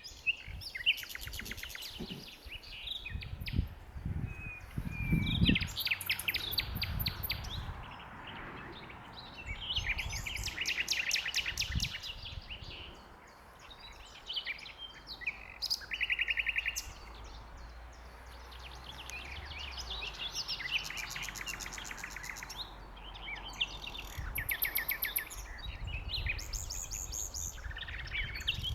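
Common nightingale singing: phrases of rapid repeated notes and trills, each a few seconds long, separated by short pauses. Low rumbles sit underneath, loudest about five seconds in.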